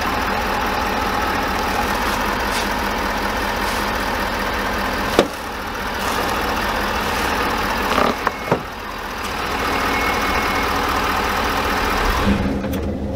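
Ford 6.7 Powerstroke diesel V8 idling steadily, with a sharp click about five seconds in and a few short knocks around eight seconds.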